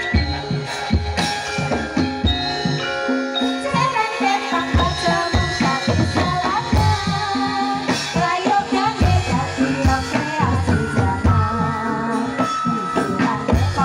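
Javanese gamelan ensemble playing live dance accompaniment: ringing bronze metallophones and gongs over a driving drum pattern, with a wavering melodic line joining about four seconds in.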